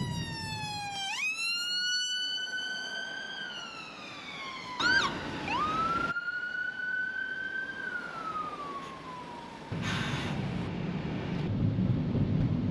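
Ambulance siren wailing in slow rising and falling sweeps, with a brief rapid yelp about five seconds in, heard from inside a car in motorway traffic. The siren stops about ten seconds in, leaving the low rumble of road noise.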